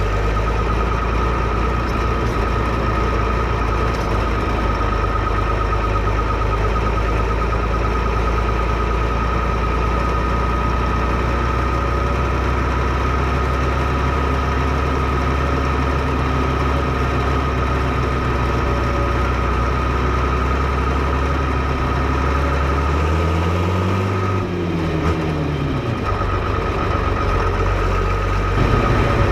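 Fiatagri 115/90 tractor's six-cylinder 5.9-litre Fiat diesel engine idling steadily, with a steady high whine over it. About three-quarters of the way through it is revved briefly, the pitch rising and falling back to idle, and it gets slightly louder near the end.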